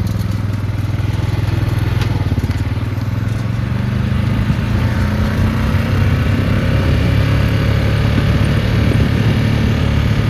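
Engine of a small hand-throttled farm vehicle running steadily under the rider, picking up a little in pitch and loudness about four seconds in.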